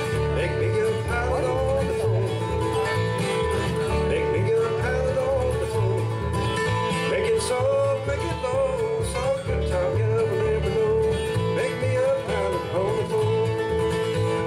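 Two steel-string acoustic guitars flatpicking a bluegrass tune over an upright bass keeping a steady beat, with no sung words.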